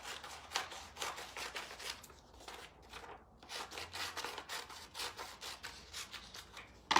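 Scissors cutting a sheet of printed paper, with repeated snips about two a second. A sharp tap comes at the very end.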